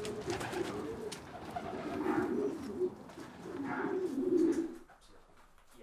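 Pigeons cooing: a run of low, warbling coos that repeat and overlap, then die away near the end.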